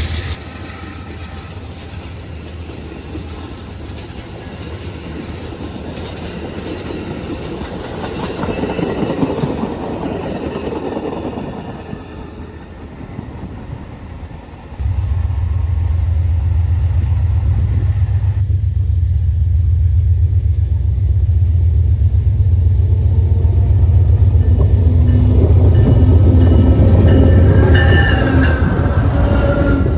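Freight train passing: rail cars rolling on the track, then from about halfway a sudden, loud, steady low rumble of a diesel locomotive.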